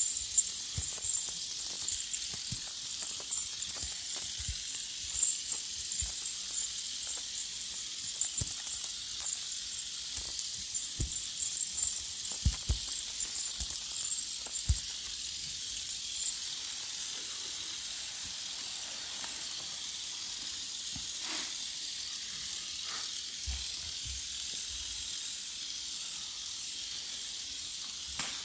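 Dense, fine, high-pitched crackling that fades out about two-thirds of the way through, leaving a faint hiss. Scattered soft low thumps run underneath.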